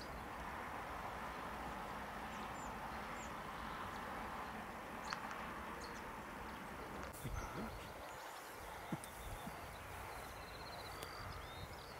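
Faint outdoor field ambience: a steady soft rushing noise with scattered high bird chirps. About seven seconds in the rushing drops away, leaving the chirps and a few low bumps on the microphone.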